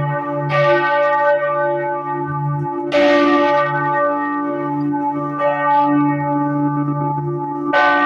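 Freiburg Minster's church bells ringing for noon: a clapper strike about every two and a half seconds, four in all, over the long, deep hum of the bells. The strike about three seconds in is the loudest.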